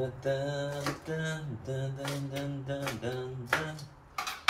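A man's voice singing a slow tune in long held notes, without words, with a few knife chops on a cutting board as red chillies are diced.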